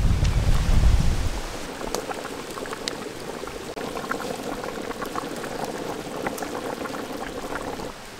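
Thick curry gravy simmering in a large pot, with many small bubbling pops as pieces of fried fish are slipped into it. A low rumble for about the first second.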